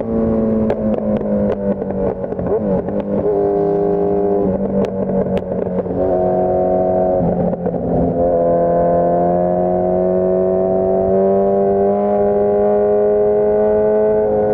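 2015 Suzuki Hayabusa's inline-four running through a Brocks Alien Head full exhaust, heard from on board while riding. Through the first half the engine note wavers and shifts up and down in steps, with a few sharp ticks; from about halfway it holds steady and climbs slowly as the bike gently accelerates.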